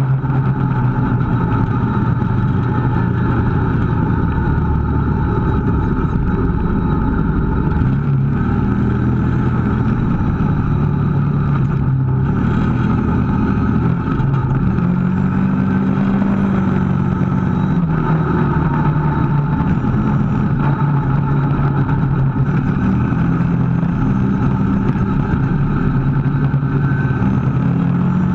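Kawasaki KVF650 ATV's V-twin engine running under way on a dirt trail, its pitch rising and falling several times with the throttle.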